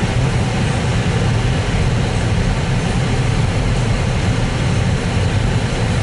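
Steady low rumble of a Jeep driving on a snow-covered road, heard from inside the cabin: engine and tyre noise at an even level.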